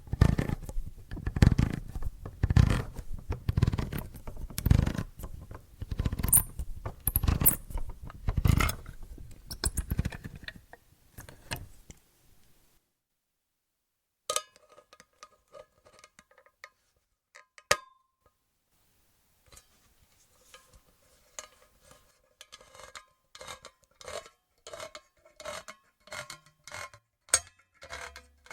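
Handheld can opener working around a metal can: about ten seconds of rapid, rasping cranking strokes, then a pause broken by two sharp metallic clicks, then lighter, regular clicking turns with a slight ring.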